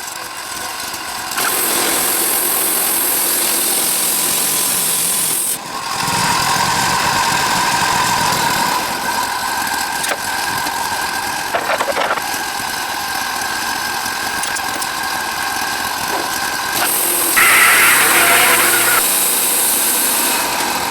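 Sawmill engine running steadily, with two stretches of high hissing noise over it, one early and one near the end.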